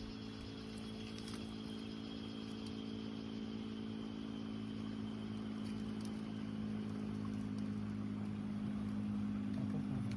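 A small engine running steadily, growing slowly louder, as if coming closer.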